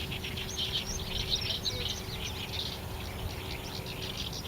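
Dense chirping and twittering of many small birds, with a low, steady outdoor rumble beneath.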